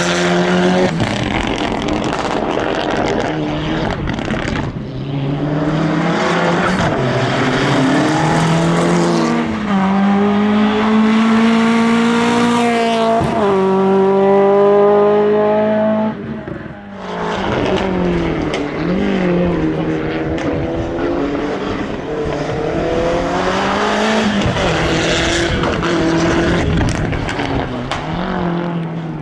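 Hillclimb race car engine revving hard through the gears. Its pitch climbs and then drops at each gear change, it is loudest a little past the middle, and it falls away suddenly about 16 seconds in before revving on again.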